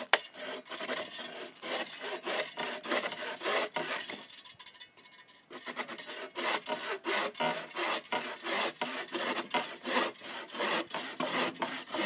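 The steel saw blade of a Zippo 4-in-1 axe/saw cutting through a thin wooden branch in quick back-and-forth strokes, with a short pause about four seconds in.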